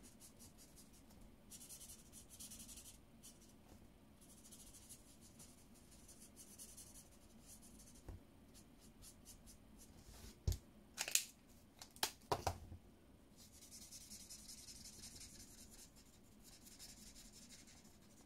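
Felt-tip marker nib scratching across paper in short strokes while colouring in a small stamped gnome's cap. Near the middle, a few sharp clicks and knocks.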